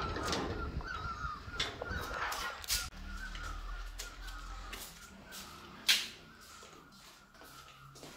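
A metal gate and a wooden door being opened and passed through: a string of sharp clicks and knocks, the loudest about six seconds in, over a faint wavering tone.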